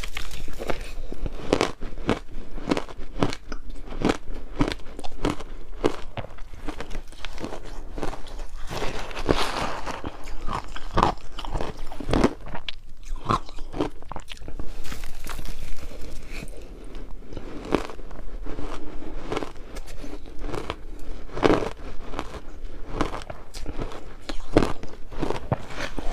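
Close-up crunching of ice being bitten and chewed: a steady run of sharp, irregular crunches.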